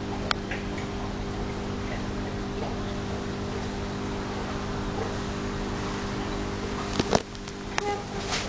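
Steady low machine hum with several fixed tones under a hiss. A faint click comes near the start, and two louder sharp knocks come about seven seconds in.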